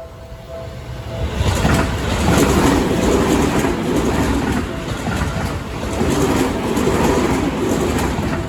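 Railway level-crossing bell ringing in a steady two-tone pattern, then a train passing close by from about a second in, its wheels rumbling and clacking over the rail joints and drowning out the bell.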